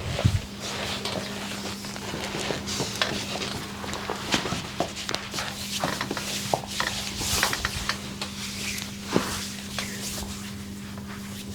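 Hands massaging a body: skin and cloth rubbing, with scattered light clicks and taps, over a steady low hum.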